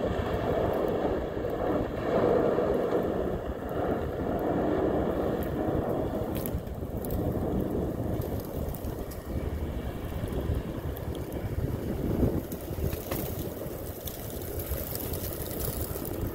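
Tugboat's diesel engine running as its bow breaks through harbour ice, with a steady churning rumble of ice and water against the hull and a few sharp cracks of breaking ice. Wind buffets the microphone.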